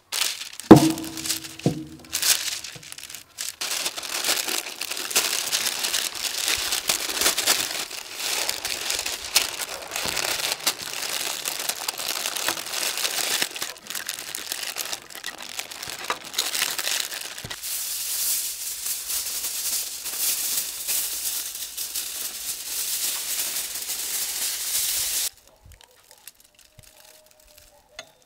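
Kraft baking paper crinkling and crumpling continuously as it is wrapped around a large joint of meat, after a knock with a short ringing tone about a second in. The rustling cuts off suddenly near the end.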